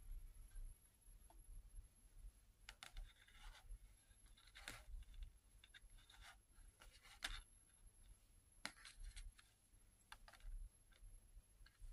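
Near silence with faint, scattered light clicks and rustles of small LEGO pieces being handled and set down on a plastic-covered mat.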